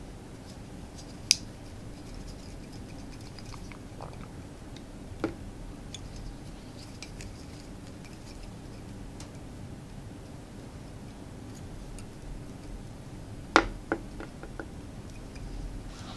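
Small sharp clicks and taps of fly-tying work at a vise, a handful spread out with a quick cluster of three or four near the end, over a steady low room hum.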